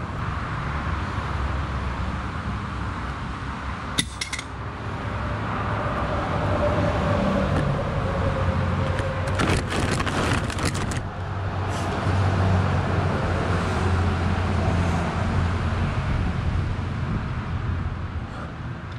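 Road traffic passing with a steady low rumble that swells louder twice. There is a single sharp metallic click about four seconds in, and a brief close clatter of footsteps and scuffing on asphalt near the middle.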